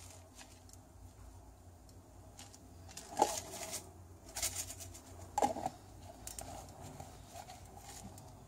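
Fried garlic flakes being shaken out of a plastic jar into a pan of rice, a light rattling pour with two sharp knocks of the jar about three and five and a half seconds in.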